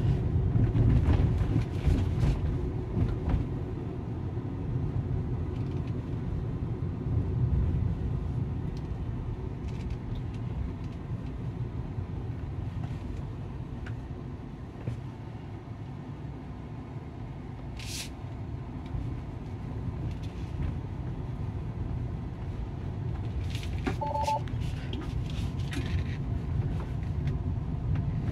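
Low steady road and tyre rumble inside a Tesla's cabin as the car drives slowly. A sharp click sounds about 18 seconds in, and a short two-tone electronic chime beeps a few times about 24 seconds in.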